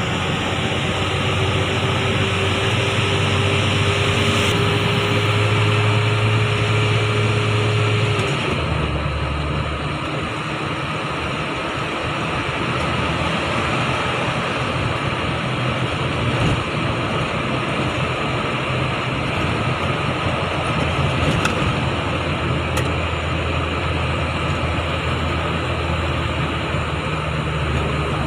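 Car engine and tyre noise heard from inside the cabin while driving at a steady pace. About eight seconds in, the engine note shifts lower.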